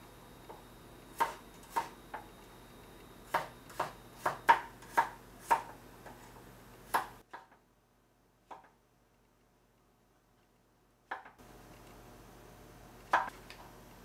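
Kitchen knife cutting garlic and button mushrooms on a wooden cutting board: a string of about ten sharp knocks as the blade strikes the board, a silent gap of a few seconds, then two more knocks near the end.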